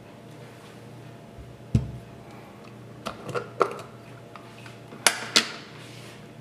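A glass jar being set down and shifted on a cloth-covered counter. There is a dull thump about two seconds in, then a few light taps and two sharp glassy clicks near the end.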